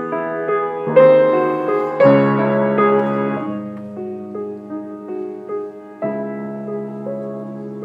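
Solo piano playing a slow classical piece: low bass notes held under a moving upper line, with new chords struck about one second, two seconds and six seconds in.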